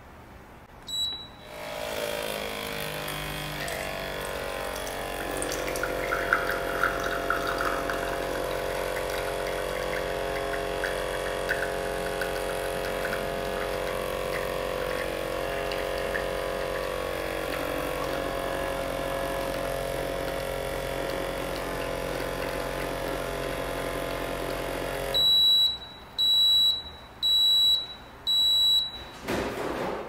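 IMONS Mini capsule espresso maker: a single beep, then its pump running with a steady hum for about 24 seconds while espresso pours into a glass. The pump cuts off, and the machine gives four short beeps as the shot finishes.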